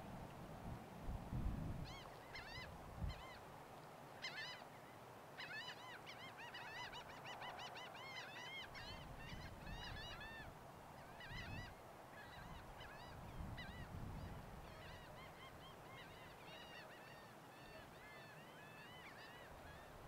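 A flock of birds calling: many short, arched calls overlapping, busiest through the middle and thinning toward the end, with a few low rumbles underneath.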